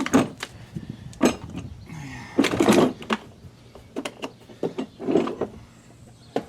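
Tools being handled and set down: a run of clicks and clanks, with a longer rattle about two and a half seconds in.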